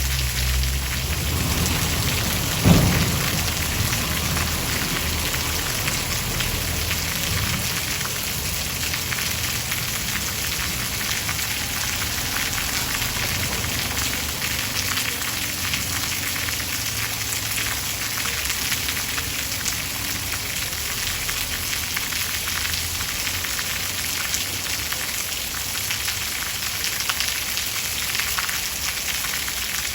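Steady rain falling. A low rumble of thunder in the first few seconds peaks in one sharp crack about three seconds in.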